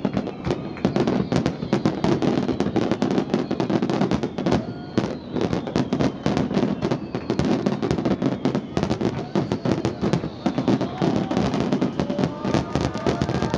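Dense barrage of fireworks: shells bursting and crackling in rapid, overlapping succession with no pause. A few whistles slide through the bursts, with a group of them near the end.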